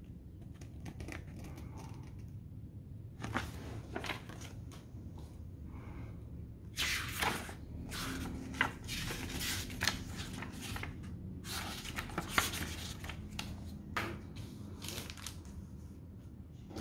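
Paper leaflets and a small paper booklet being handled and leafed through, with irregular bursts of crisp rustling that are busiest in the middle. Near the end, a clear plastic bag crinkles as it is moved.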